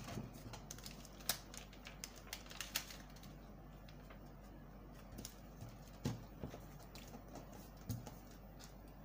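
Light, scattered clicks and taps of a paper sewing pattern and drafting tools being handled on a table, over a faint steady hum.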